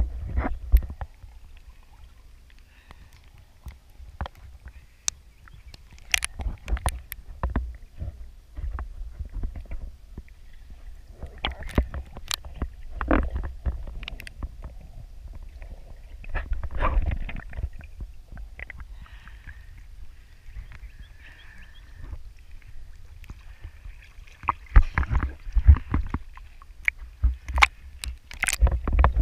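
Water sloshing and gurgling heard through an action camera's waterproof housing as it moves underwater and breaks the surface, over a low muffled rumble, with scattered sharp clicks and knocks. It grows louder and splashier near the end.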